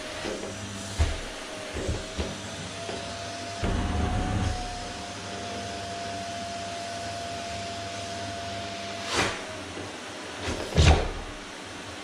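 Canister vacuum cleaner running with a steady whine that fades out with a slight fall near the end. Several knocks and bumps come through it, the loudest near the end.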